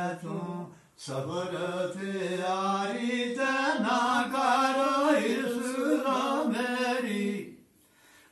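A man chanting unaccompanied in long, melodic held notes, breaking for breath about a second in and again near the end.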